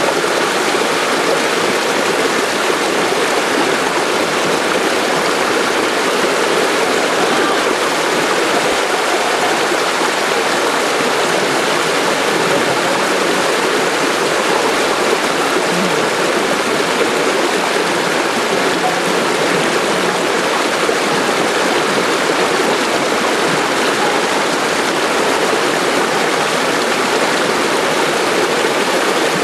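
Steady, loud rush of fast-flowing floodwater.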